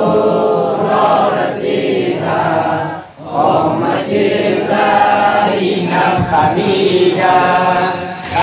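Group of men and boys chanting a Shia Muharram noha (mourning lament) in unison, the response chorus, in long sung phrases with a brief pause about three seconds in.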